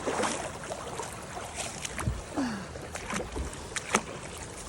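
Cold glacial lake water sloshing and splashing around a person's legs as she wades in quickly, with a few sharp knocks and a couple of short sounds falling in pitch.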